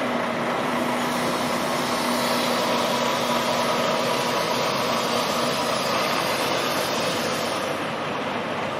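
A Volvo semi-truck's diesel engine running steadily as the tractor-trailer creeps through a slow reversing maneuver. There are no reversing beeps here.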